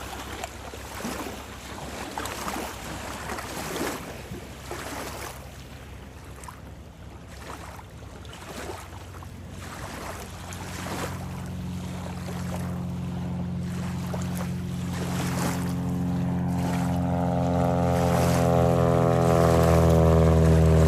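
Lake water lapping and splashing in small waves. From about halfway through, a small propeller aircraft's engine drone grows steadily louder and becomes the loudest sound by the end.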